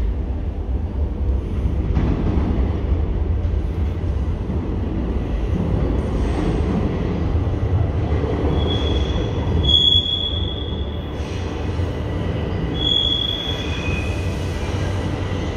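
Toronto Rocket subway train approaching through the tunnel, a steady low rumble of the train on the rails. Several short high-pitched squeals come in the second half.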